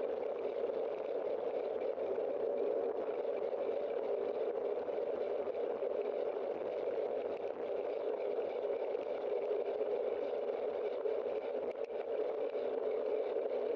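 Steady, muffled rushing noise of riding a bicycle, picked up by a bike-mounted camera: wind and tyre-on-road noise.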